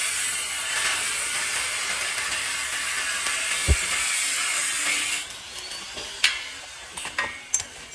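A steady high hiss that stops about five seconds in, followed by a few sharp clicks and knocks.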